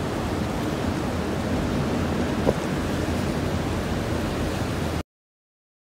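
Typhoon winds blowing hard, a steady rush of wind noise with the gusts hitting the microphone, and a single short knock about halfway through. The sound cuts off suddenly near the end.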